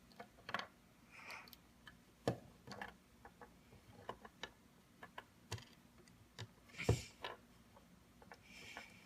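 Plastic LEGO bricks clicking and tapping as they are handled and pressed together: irregular small clicks, with the loudest knock a little before seven seconds in and a couple of brief rustles.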